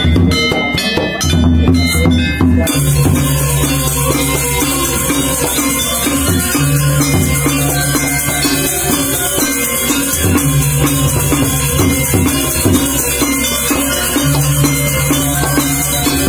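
Balinese gamelan ensemble (seka gong) playing: bronze metallophones ring out clear struck notes, and about three seconds in a dense, fast high jingling joins them. Deep held low tones recur every couple of seconds under the ensemble.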